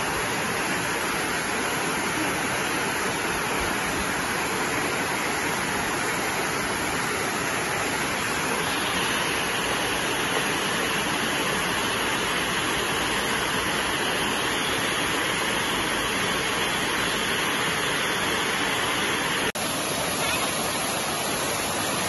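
Waterfall rushing down rock slabs into a pool: a steady, even rush of falling water heard close at hand, with one brief dip near the end.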